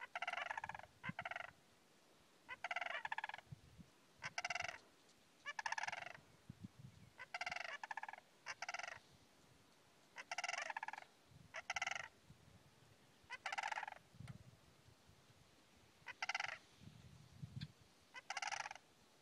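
Greater sandhill crane giving its rattling bugle calls, about a dozen short calls, many in quick pairs, with brief pauses between them.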